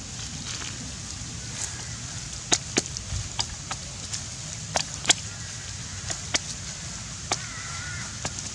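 About a dozen sharp, irregular taps and clicks, the loudest about five seconds in, over a steady low rumble.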